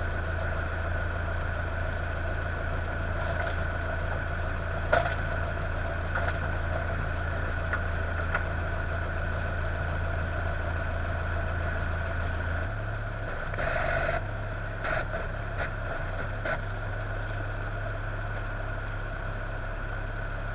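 Boat engine idling steadily, its low hum shifting about two-thirds of the way through, with a few short knocks and clunks on the hull and deck.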